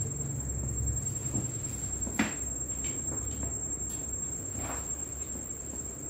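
Soft shifting sounds of a patient being positioned on a padded treatment table, with one sharp click about two seconds in. A steady low hum and a constant high whine run underneath.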